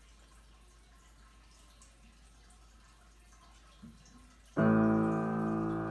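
Faint background hiss, then about three-quarters of the way in a loud piano chord is struck and rings on, slowly fading.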